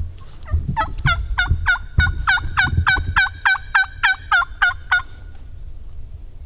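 Turkey yelping: a run of about fifteen evenly spaced yelps, three to four a second, lasting about four seconds, over a low rumble with a few thumps.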